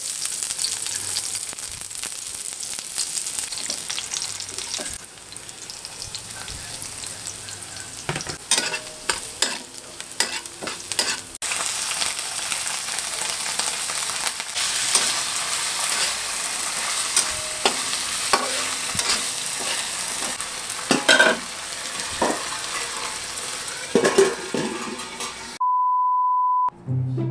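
Onions sizzling in hot oil in a steel wok, with a metal spatula scraping and knocking against the pan as it stirs. Near the end the sizzling cuts off and a steady test-tone beep sounds for about a second over colour bars.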